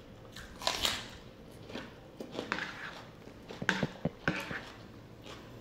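A crunchy bite into a whole raw onion about a second in, followed by chewing with small crunches. A few sharp clicks of a fork against the bowl come about four seconds in.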